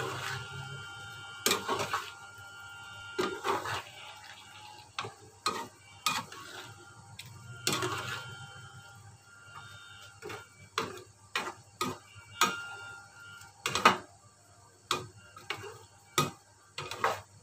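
Long-handled metal spatula knocking and scraping against a frying pan as a thick vegetable sambal is stirred. The clacks come irregularly, several a second at times and then spaced out, with a louder knock a little before the end.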